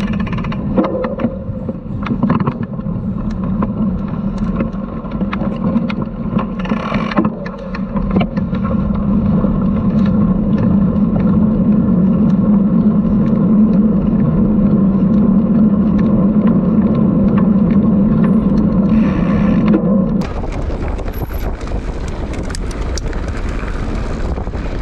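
Mountain bike rolling fast on a dirt and gravel track: a steady tyre hum with many small clicks and rattles from stones and the bike, and wind on the microphone. The hum drops away about 20 seconds in, leaving a looser rattling.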